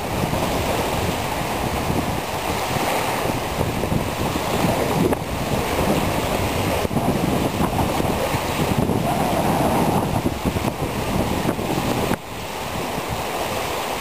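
Strong wind gusting over the microphone, over choppy river water lapping at the shore; the wind eases suddenly near the end.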